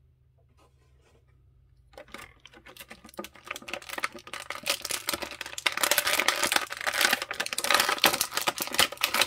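Action figure's plastic packaging tray crinkling and crackling as it is handled and pulled apart. It starts with sparse clicks about two seconds in and builds to dense, loud crackling from about halfway.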